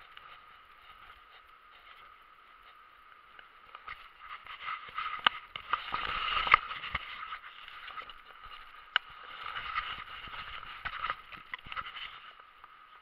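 Steady rush of a fast river, muffled by an action camera, with scraping and knocking from handling a spinning rod and reel through the middle. A few sharp clicks stand out, the loudest around the middle.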